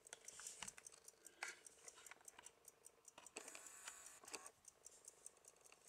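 Faint, quick, even ticking of a Waltham key-wind pocket watch's seven-jewel lever movement, running and healthy. A few louder taps and a brief rustle of cloth as the watch is handled.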